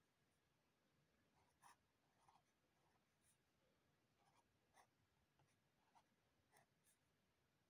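Pen writing on paper: faint, short scratching strokes, starting about a second and a half in.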